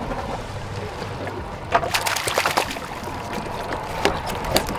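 Water splashing beside a slowly trolling boat as a live bonita is released at the surface next to the hull, with a burst of splashes about two seconds in and a couple more near the end, over a low steady hum.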